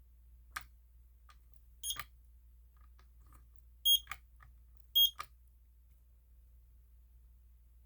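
Smoke and carbon monoxide alarm giving three short, high beeps over about three seconds, among sharp clicks, instead of sounding its full alarm. The owner takes the unit to be broken.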